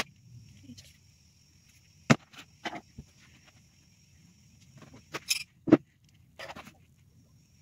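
Scattered clicks and knocks of makeup being handled: an eyeshadow palette and small items picked up and set down, about seven sharp taps in all, the loudest about two seconds in and near three-quarters through.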